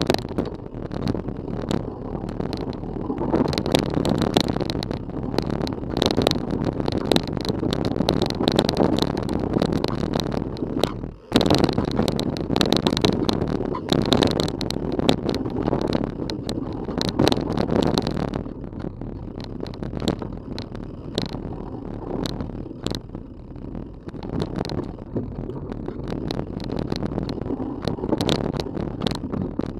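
Rocky Mountain Element 930 mountain bike riding fast down a dirt singletrack, heard through a camera strapped to the bike frame: continuous tyre rumble and frame rattle, with frequent sharp knocks and clatters over bumps. The noise drops out suddenly for a moment about eleven seconds in.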